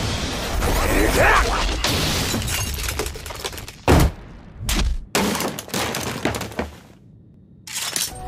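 Anime fight sound effects: dense crashing noise, a sharp loud impact about four seconds in, then several shorter hits, a brief lull and one more hit near the end.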